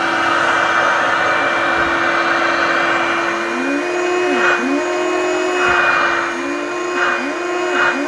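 Hoover Turbopower Freedom upright vacuum cleaner running steadily on speed 2. From about three and a half seconds in, a hand repeatedly chokes the airflow at the fill tube, so the motor pitch dips and recovers several times with short rushes of air; the choked airflow trips the bag-full indicator.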